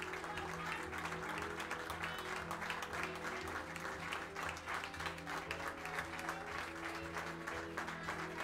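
Background music of held, slowly shifting chords, with light applause running under it.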